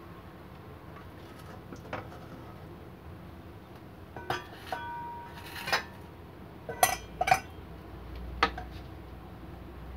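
Stainless steel mesh strainer and metal kitchenware clinking against pans and bowls. There are about six sharp metallic clinks from about four seconds in, some ringing briefly, and the loudest two come close together near seven seconds.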